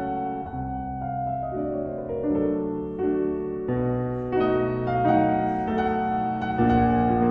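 Slow, gentle piano music: held chords and single notes changing about every second, growing louder near the end.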